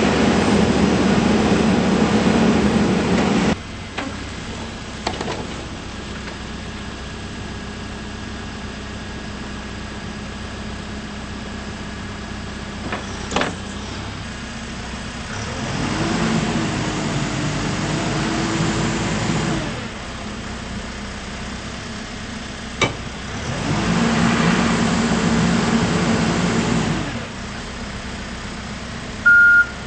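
Case 580N backhoe loader's diesel engine running: it drops from a higher speed to a quieter idle a few seconds in, then rises twice under load with a wavering tone, with a couple of single clicks. A reversing alarm starts beeping near the end.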